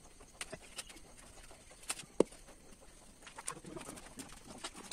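Feathers being hand-plucked from a scalded, wet duck: scattered soft clicks and rips as the feathers are pulled, the sharpest about two seconds in. A bird calls faintly in the background.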